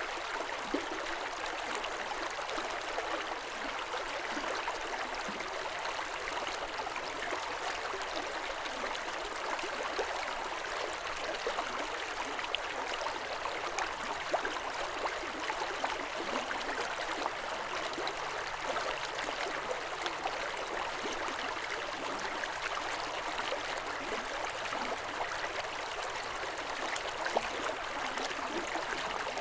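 River water running steadily over stones: a constant rushing and babbling with small splashes throughout.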